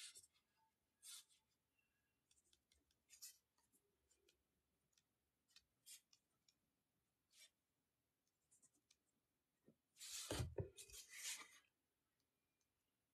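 Faint, scattered scratches and rustles of a paper notepad being handled, with a louder rustle and a low knock about ten seconds in.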